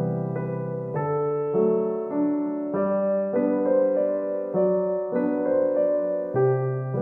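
Background piano music: an even, gentle tune with new notes struck a little under twice a second.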